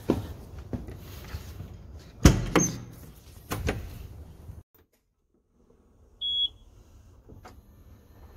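Footsteps and knocks climbing the steps into a tractor cab, with a loud slam about two seconds in as the cab door shuts, then a single short electronic beep from the cab controls about six seconds in.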